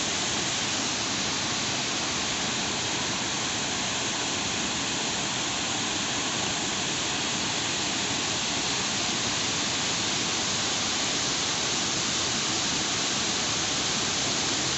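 Water pouring over a long, low stepped dam weir into the river below: a steady, even rushing that doesn't change.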